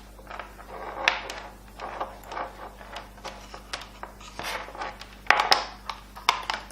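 Rustling and scraping as a lavalier microphone's long cable is handled and uncoiled, with scattered small clicks, the sharpest about five seconds in.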